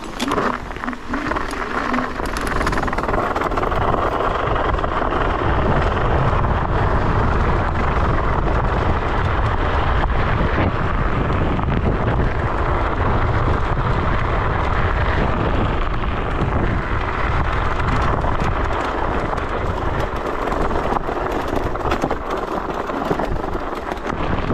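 Steady rushing and low rumbling noise of riding along on an electric scooter, with wind over the microphone and tyre noise, growing louder over the first few seconds.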